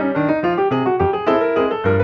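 Background piano music: a quick run of notes over low bass notes.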